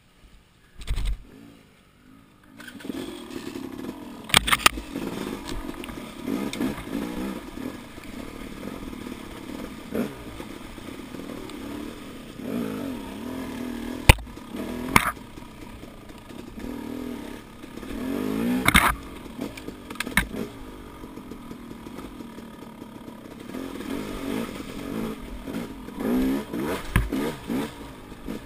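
Dirt bike engine running at trail speed, its note rising and falling with the throttle, with sharp knocks and clatter from the bike over rough ground. The engine sound starts about two seconds in, after a near-silent moment.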